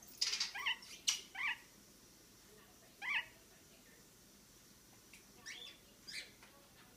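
Lineolated parakeet giving short chirps: a quick run of several chirps in the first second and a half, one more about three seconds in, and two near the end.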